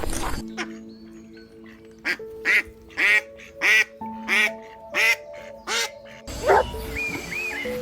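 A duck quacking, about seven short quacks from about two seconds in, over soft background music with held notes. Near the end a noisier background comes in with other short calls.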